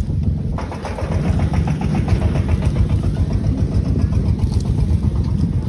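Generator engine running steadily to power the ground water pump, with an even low pulsing; about half a second in it gets louder and busier.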